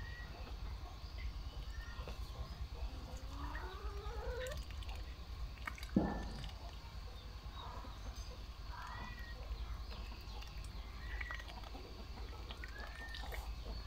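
Birds chirping and calling on and off, short rising and falling notes, over a steady low hum. There is a single sudden knock about six seconds in.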